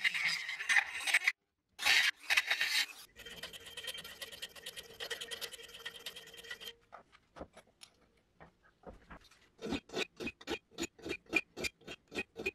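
Handheld high-speed rotary tool with a grinding burr cutting into steel, a steady high whine with grinding noise. From about ten seconds in, a hand file rasps on the steel in even strokes, about three a second.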